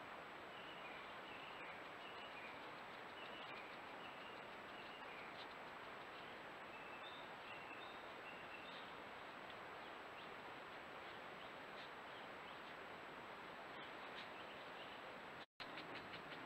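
Steady hiss from a trail camera's microphone with a faint steady high whine, and faint short high chirps scattered through the first half. The sound cuts out for an instant near the end.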